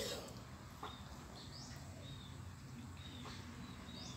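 Small birds chirping over and over, short high calls every half second to a second. Faint clicks come from cats eating from a plate, and a short noisy knock sounds right at the start.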